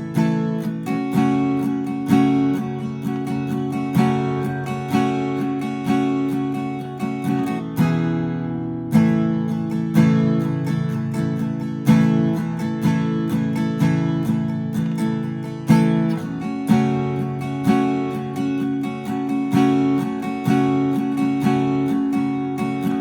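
Rogue RA-090 dreadnought acoustic guitar strummed through a chord progression, with freshly fitted Martin MA140 80/20 bronze light strings. Chords change every couple of seconds, each hit with repeated strokes.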